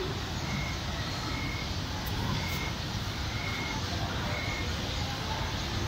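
Steady background hiss with faint, short high-pitched calls repeating about once a second.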